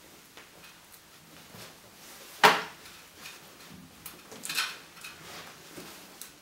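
A rubber balloon's neck being stretched and knotted by hand, with one sharp snap about two and a half seconds in and a cluster of smaller rubbing and snapping sounds around four and a half seconds.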